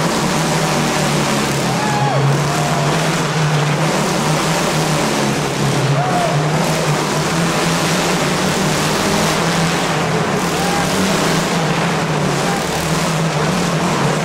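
Motorcycle engine running hard and steady as the bike circles the vertical wooden wall of a Wall of Death drum, its drone unbroken throughout.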